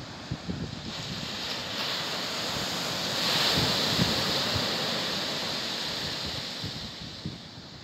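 Ocean surf breaking on a sandy beach: the hiss of a wave swells about a second in, is loudest midway, then slowly fades as the water washes up the sand. Wind buffets the microphone with low, irregular thumps.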